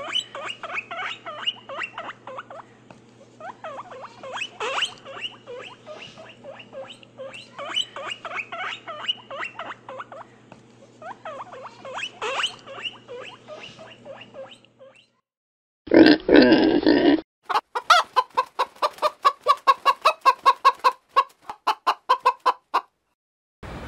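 Animal calls: a dense run of short, repeated calls for about fifteen seconds, then a brief loud call and a rapid string of evenly spaced pulsed calls.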